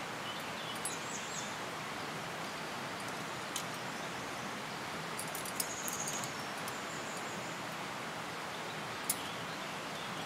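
Steady outdoor hiss of wind in the trees, with a few faint high bird chirps and three brief sharp clicks.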